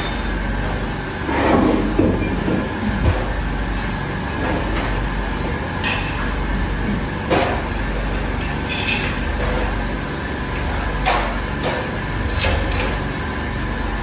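Steady mechanical noise with a low hum, broken every few seconds by a sharp knock.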